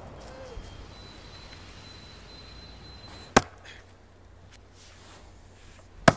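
Axe chopping into a standing tree trunk: two sharp strokes, a little under three seconds apart.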